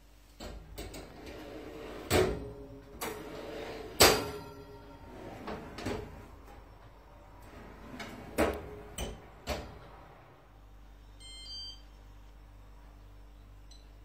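Metal oven shelf and baking tray being slid in and out along the side rails of a Bauknecht built-in oven: scraping with a series of sharp metallic clatters, the loudest about four seconds in. Near the end, a short electronic beep.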